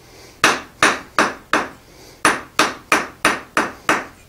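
Hand hammer striking a hot steel bar on the face of an anvil, about three blows a second: four blows, a short pause, then six more, each with a brief ring. The smith is smoothing lumps out of the bar.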